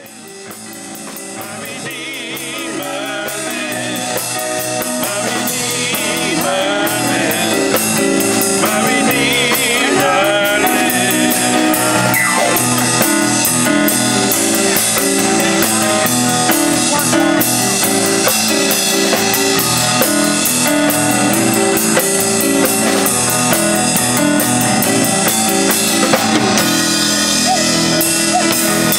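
A live band playing, with drum kit, guitar, keyboard and a woman singing. It fades in over the first few seconds.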